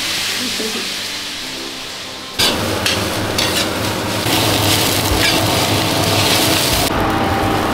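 Food sizzling as it fries in hot oil, a steady crackling hiss that jumps suddenly louder about two and a half seconds in.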